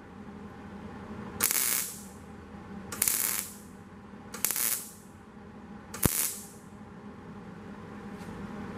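Welder laying tack welds on sheet steel for a side skirt repair: four short bursts of hissing noise, each about half a second, evenly spaced about a second and a half apart.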